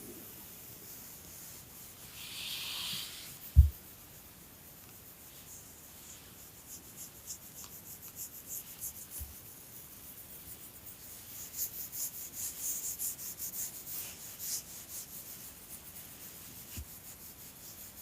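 Scratchy rubbing noises: a brief hiss, then a run of quick rasping strokes through the middle, with one sharp low thump about three and a half seconds in that is the loudest sound.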